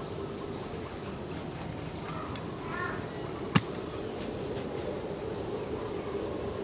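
One sharp chop of a cleaver through baby shark onto a wooden chopping board about three and a half seconds in, with a lighter knock a second before it.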